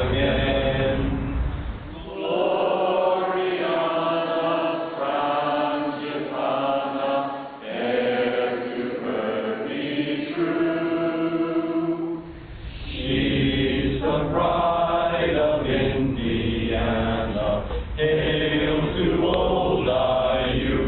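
A group of people singing a song together, holding long notes. The sound changes abruptly about two seconds in and again about twelve seconds in, where different recordings are joined.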